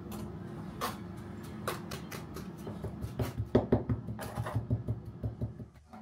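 Silicon carbide sand mold mix being packed and tapped down around a pattern: a run of taps and knocks, coming faster and louder from about halfway, over a steady low hum. It cuts off suddenly just before the end.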